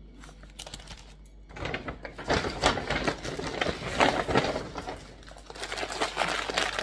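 Grocery bags and packaging rustling and crinkling as shopping is unpacked and handled, in quick uneven bursts that grow louder about a second and a half in.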